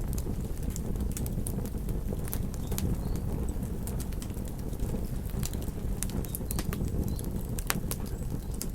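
Wood fire crackling, with irregular sharp pops and snaps over a steady low rumble of the flames.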